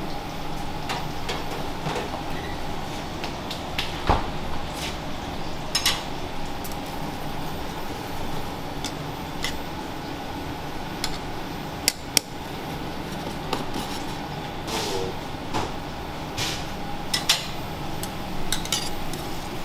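Stainless-steel pans and a metal ladle clinking and knocking on the induction hob and pot rims as a pasta sauce is swirled and pasta water is ladled in, over a steady kitchen hum. The knocks come singly and irregularly, bunching together near the end.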